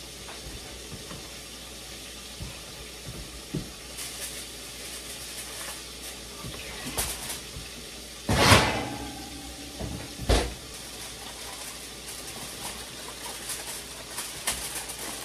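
Oven door and baking pan being handled while the baked macaroni and cheese is checked: a few light clicks, a loud scraping clatter about eight seconds in and a sharp thump about two seconds later, over a steady hiss.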